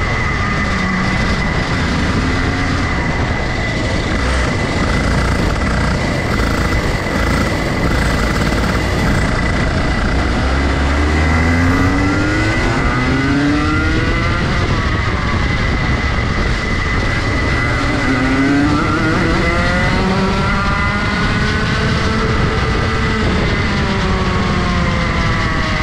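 Rotax Max Junior two-stroke kart engine under racing load, its pitch sweeping up as it revs out and falling back off the throttle, several times over. A steady high whine runs underneath.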